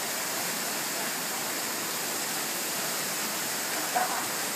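Steady rush of a waterfall pouring into a pool, with a brief voice about four seconds in.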